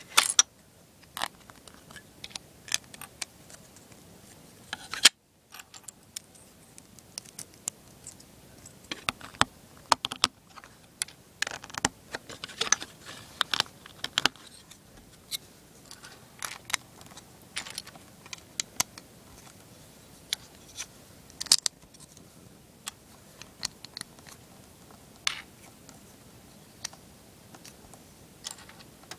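Small plastic LEGO pieces clicking and clattering as they are picked up, set down and pressed together on a tabletop, in irregular short taps, with a brief silent gap about five seconds in.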